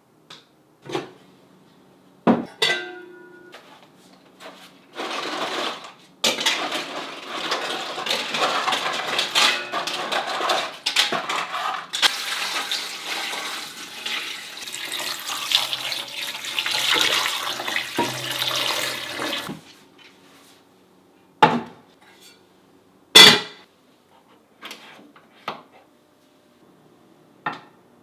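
Kitchen pots and utensils clinking and knocking, one clink ringing briefly, then water running or pouring for about thirteen seconds, followed by a few more knocks, one of them loud.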